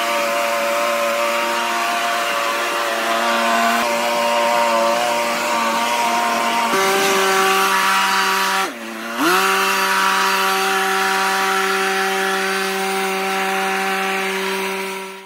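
Makita EB5300TH four-stroke backpack leaf blower running at high throttle, a steady engine note with fan rush. About nine seconds in the engine briefly drops in pitch and comes straight back up as the throttle is eased off and reopened.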